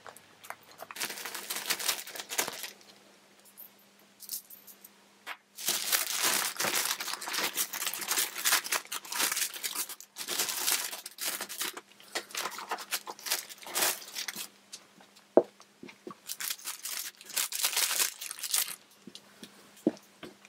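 Plastic vacuum-bag film crinkling and rustling in irregular bursts with short pauses as it is handled and pulled back by hand, with a few brief clicks. A faint steady hum lies underneath.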